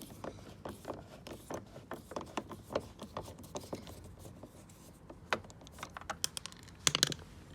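A Torx T20 screw being undone from a car's interior door handle: small irregular clicks and scrapes of the driver bit working in the screw head, with a quick cluster of sharper clicks near the end.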